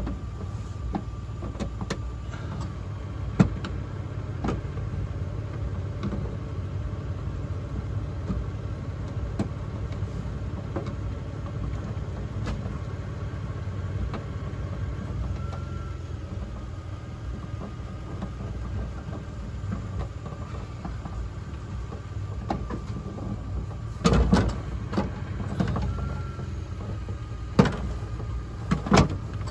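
Sharp plastic clicks and knocks from the Durango's liftgate inside trim panel being pressed onto its clips by hand. A cluster of snaps comes about 24 seconds in and more near the end, over a steady low hum.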